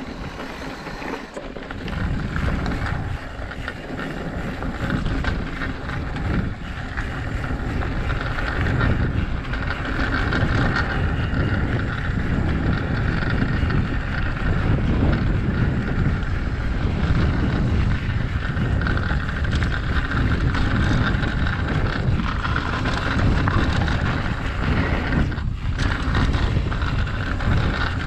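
Mountain bike descending a dirt trail at speed: wind buffeting the action camera's microphone, with tyre noise and the rattle of the bike over rough ground, getting louder over the first several seconds and easing briefly near the end.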